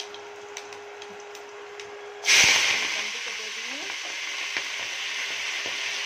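Chopped vegetables, cauliflower stalks and leaves among them, tipped into hot mustard oil in a wok, bursting into a loud sizzle a little over two seconds in that carries on steadily. Before that, garlic and whole spices frying quietly in the oil under a faint steady hum.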